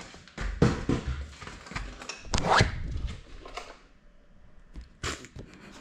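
The drone's mounted GoPro being picked up and handled, giving irregular scrapes, rubs and knocks against the camera, loudest in the first three seconds and quieter near the end.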